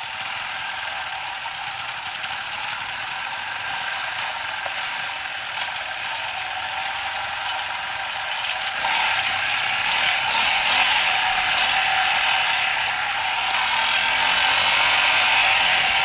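Off-road motorcycle engine running with a steady mechanical chatter, growing louder about nine seconds in, with the revs rising and falling in the later part.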